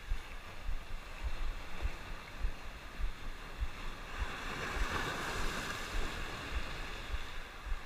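Ocean surf washing over a rocky shoreline, with wind buffeting the microphone in low thumps; a wave swells and washes in about halfway through.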